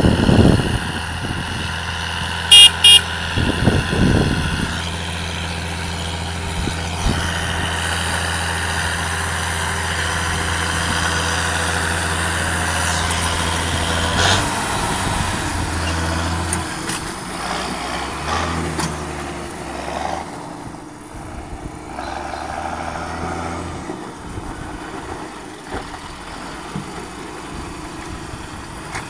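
John Deere 6630 tractor's six-cylinder diesel running steadily under load while pulling a Monosem pneumatic maize planter, its note changing after about seventeen seconds and growing quieter from about twenty seconds. Two short loud beeps about two and a half seconds in, and wind buffeting the microphone near the start.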